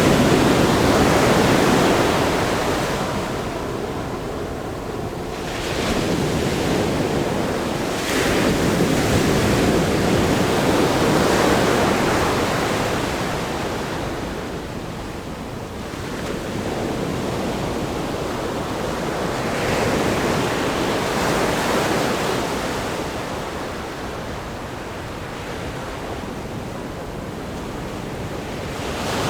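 Ocean surf breaking on a rock groin: a continuous rushing wash of water that swells with each wave and eases between them, several surges over the stretch.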